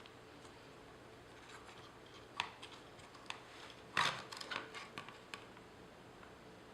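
A few small clicks and taps from small parts and tools being handled during a laptop disassembly. There is one click a little after two seconds in, then a quick run of louder clicks from about four seconds in.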